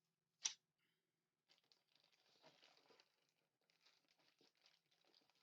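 One sharp click about half a second in, then faint rustling and crinkling as the plastic model-kit parts and their packaging are handled.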